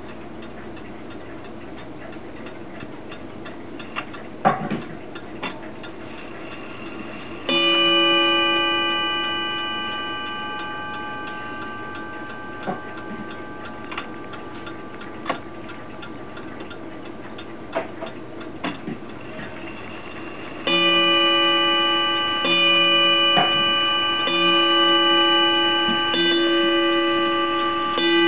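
Seth Thomas Crystal Palace No. 200 clock striking on its hanging gong as its hands are turned: a single ringing stroke about seven seconds in, the half-hour strike, slowly dying away. From about two-thirds of the way through comes a run of strokes a little under two seconds apart, the hour count, with faint ticks and clicks from the movement in between.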